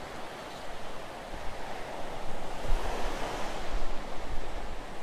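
Ocean surf breaking and washing up a sandy beach, a steady rush that swells louder about halfway through, with wind rumbling on the microphone.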